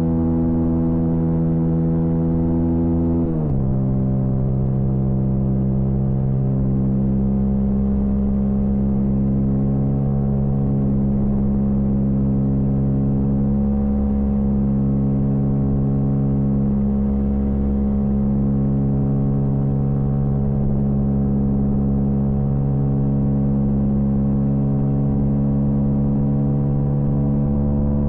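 Honda CB125R's single-cylinder four-stroke engine running at high, nearly steady revs. About three seconds in the pitch drops once, as on a gear change, then holds.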